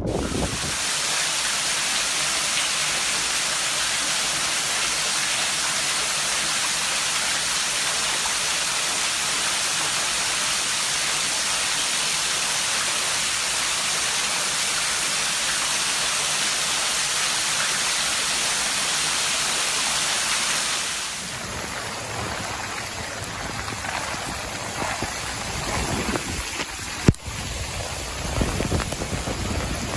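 Heavy thunderstorm rain pouring down in a steady, even hiss. About two-thirds of the way through, it gives way to a quieter, rougher wash of rain and running water with a few scattered knocks, one of them sharp near the end.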